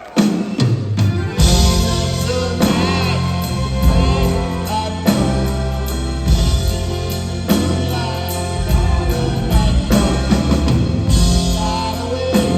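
Live rock band playing a song on drum kit and bass with guitars. The full band kicks in with a steady beat about a second and a half in.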